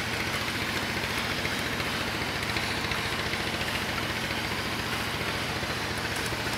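A small engine running steadily, with a fast, even pulse, and water sloshing as wooden gold pans are swirled in a shallow river.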